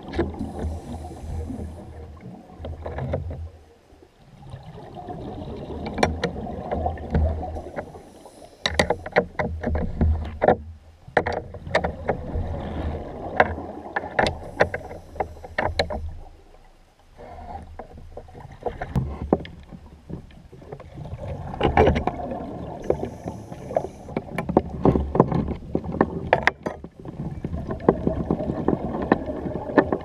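Underwater thermal cutting heard from underwater: a rumble of bubbles with many sharp crackles and pops, in surges that fall away briefly twice, with short high hisses of the diver's breathing regulator now and then.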